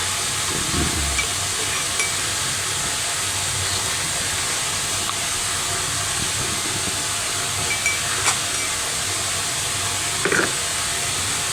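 A steady, even hiss with a few soft clicks near the end.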